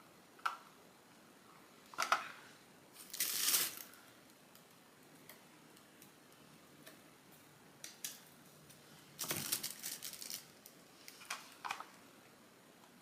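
Handling noise of small parts and packaging: scattered light clicks and knocks, with two longer scratchy bursts about three seconds in and again around nine to ten seconds.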